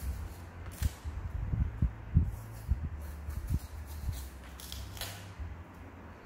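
Kitchen knife paring the rind off a melon: short, scratchy slicing strokes at irregular intervals, over a low handling rumble with soft knocks.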